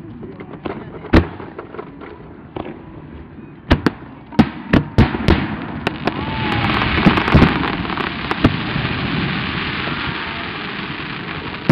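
Fireworks display: aerial shells bursting with sharp bangs, a quick run of them about four to five seconds in. From about six seconds a dense hissing crackle of burning stars fades slowly, with a few more bangs in it.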